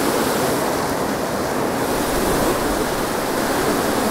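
River whitewater rushing steadily through a narrow granite chute, an even, unbroken rush of water.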